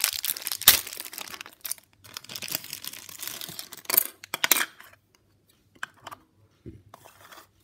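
Plastic packaging crinkling and tearing, with a sharp click just under a second in and more loud rustling about four seconds in. Near the end the rustling gives way to a few light clicks and taps of small plastic parts being handled.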